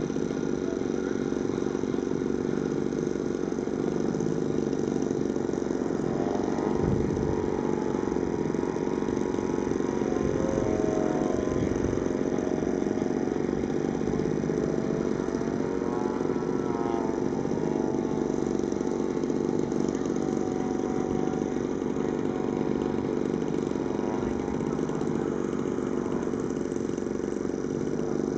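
Engine of a radio-controlled aerobatic model airplane in flight, droning steadily, its pitch rising and falling a few times as the throttle changes.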